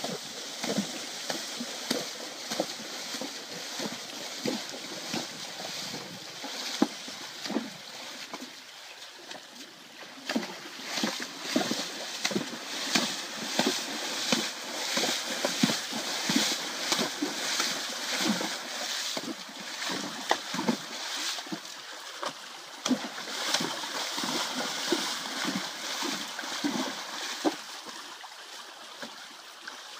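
Friesian horses splashing in a shallow stream, with repeated uneven splashes, one or two a second, over the steady rush of the water.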